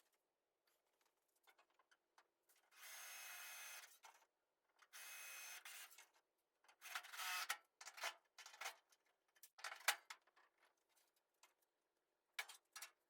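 Faint scraping, two strokes of about a second each, followed by a scatter of light clicks and taps.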